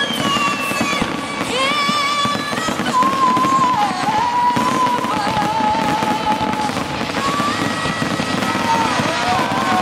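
Fireworks going off in a dense, continuous crackle of bangs, with whistling tones gliding and warbling over it.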